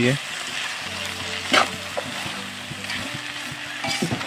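Spring onions and peas sizzling in a metal wok while a metal spatula stirs them, scraping the pan now and then, most sharply about one and a half seconds in.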